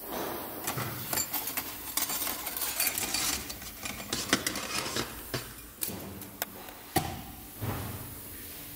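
Automatic-transmission clutch plates, steel plates and friction discs, clinking and scraping against one another and the steel workbench as they are handled and stacked. A busy run of clinks and knocks, with a sharper knock about seven seconds in, then quieting near the end.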